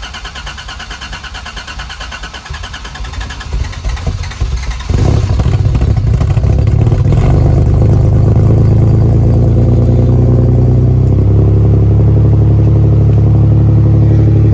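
Toyota 3.4 V6 truck engine cranking on the starter for about five seconds, then catching and running at a loud, steady idle. The exhaust comes out through a freshly welded pipe and a Flowmaster FX muffler on its first run.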